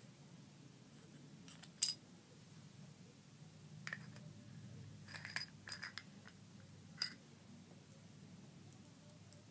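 Small hand-held objects clicking and clinking as they are handled: a sharp click about two seconds in, the loudest, then scattered lighter clicks in the middle, a quick cluster, and one more click a little later.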